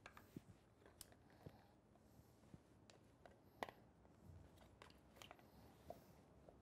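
Near silence broken by a few faint, scattered clicks and taps of plastic dosing-pump parts being handled, the most distinct about halfway through.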